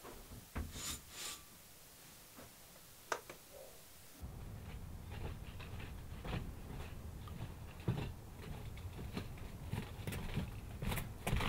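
A few light clicks and knocks in a quiet room. About four seconds in, a low outdoor rumble comes in, with irregular tapping and scraping footsteps on clay roof tiles.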